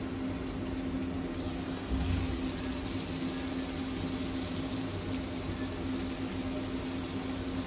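Batter-coated cauliflower florets frying in hot oil in a nonstick kadai, a steady sizzle, over the steady hum of the induction cooktop. A soft thump about two seconds in.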